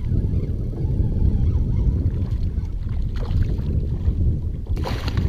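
Wind buffeting an action camera's microphone, a steady low rumble, while a hooked bass is played beside a kayak; near the end comes a short splash of water.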